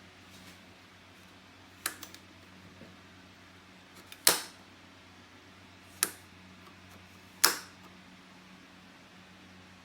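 Four sharp knocks or clacks of hard objects, spaced a second and a half to two seconds apart, over a faint steady hum.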